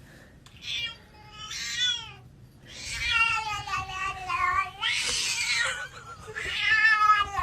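Cat meowing and yowling: two short meows, then several long, drawn-out, wavering yowls.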